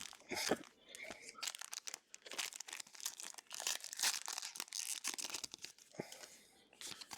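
Foil trading-card booster pack being torn open, the wrapper crinkling and crackling in quick, irregular bursts, with a few card clicks at the start and near the end.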